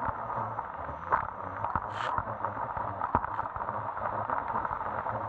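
Jet ski running over the water: a steady engine drone under a hiss of water and wind on the microphone, with scattered sharp knocks and a short hiss about two seconds in.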